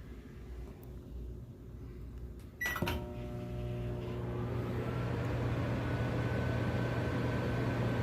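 Microwave oven being started: a sharp click and a short beep a little under three seconds in, then the oven running with a steady low hum.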